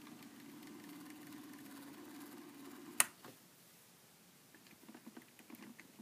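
Small electric motor of a rotating display turntable humming steadily, cut off by a sharp click about halfway through. Faint scattered clicks and taps follow as a hand handles the diecast motorcycle model.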